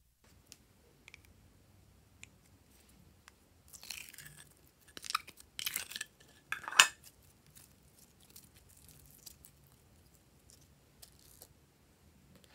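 Glossy slime being handled and pulled apart, making sticky, wet crackling and squelching sounds, densest about four to seven seconds in. The crackling ends in one sharp slap, the loudest sound, with a few faint clicks before and after.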